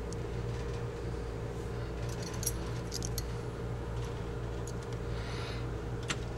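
Steady low electrical hum with a few faint, short metallic clicks of small hand tools being handled, about two to three seconds in and again near the end.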